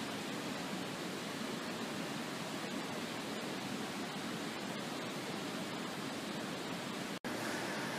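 Steady rushing noise, broken by a very short dropout about seven seconds in; after the break it carries on with a faint steady whine.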